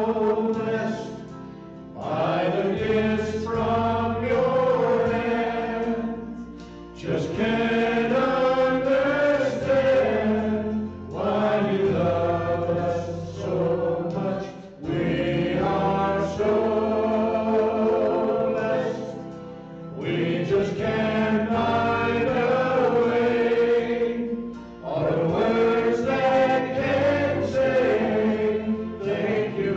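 A small group of mixed men's and women's voices singing a slow hymn in harmony through microphones, over an instrumental accompaniment. The singing comes in long phrases with short breaks between them.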